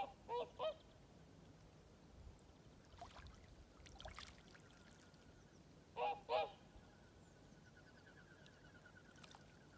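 Swans calling: a pair of loud honking calls at the start and another pair about six seconds in, with a few fainter calls between.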